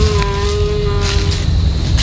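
A deer call: one held, slightly falling tone that ends about one and a half seconds in, over a steady low rumble.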